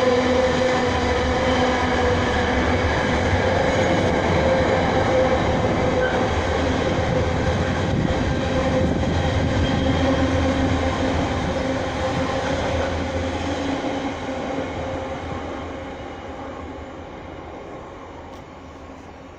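Container wagons of a freight train rolling past on the rails, a steady rumble with a held squeal from the wheels. It fades away as the end of the train passes, near the end.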